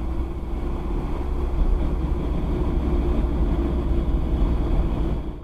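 Audi A4 B5 1.8T driveline grinding under engine braking with the clutch engaged: a steady drone over low road rumble. The owner found the noise gone after replacing the driveshaft center bearing.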